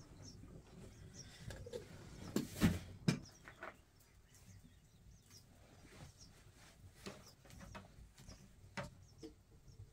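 A few knocks and clinks as a metal kettle and tea glasses are handled and set down, the loudest a pair of knocks about two and a half to three seconds in. Faint bird chirps sound in the background.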